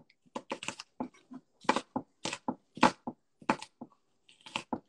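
Chef's knife chopping an onion on a wooden cutting board: a string of irregular chops, about two or three a second.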